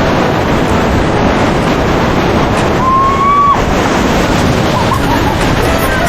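Rushing river water with wind buffeting the helmet-mounted action camera's microphone, a loud steady noise. A brief high call sounds about three seconds in.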